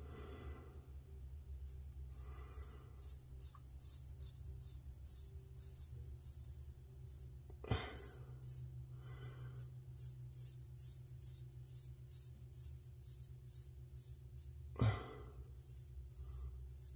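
Swedish-steel straight razor scraping through lathered stubble in short, quick strokes, about two to three a second, as a faint crisp rasp. A louder brief sound cuts in about eight seconds in and again near the end.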